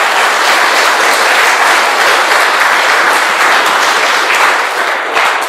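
Audience applauding steadily, many hands clapping in a dense, even patter.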